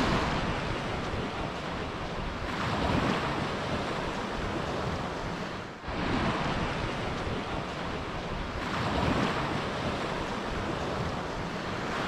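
Waves washing on the shore with some wind, swelling and easing every few seconds. The sound drops out briefly about six seconds in, then carries on.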